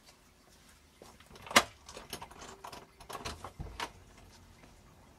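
A door being unlocked and opened: one sharp latch click about a second and a half in, then a run of smaller clicks and knocks from the lock and handle.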